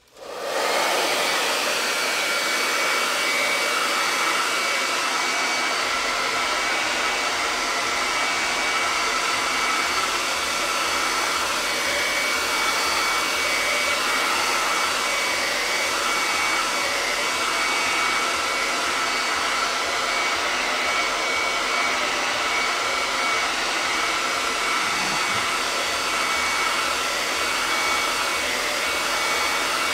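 Handheld hair dryer switching on and running steadily, a rush of air with a faint high whine, blowing over wet chalk paste on a wooden sign to dry it.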